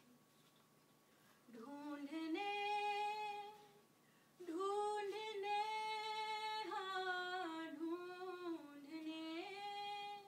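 A woman singing unaccompanied, holding long notes that bend slowly in pitch: a short phrase about one and a half seconds in, a brief pause, then a longer phrase.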